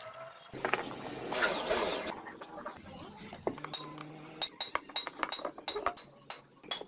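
Metal parts and tools clinking and knocking together, a scraping noise about a second in, then a run of sharp clinks.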